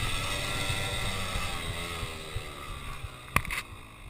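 Motocross bike engine heard from on board, revs falling and rising as the rider rolls the throttle, fading gradually. Two sharp knocks come about three and a half seconds in.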